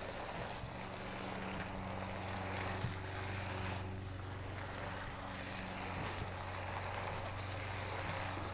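Noodles and vegetables being stir-fried in a Breville Hot Wok electric wok: sizzling, with the rustle and scrape of plastic spatulas tossing them. A steady low hum runs underneath and stops near the end.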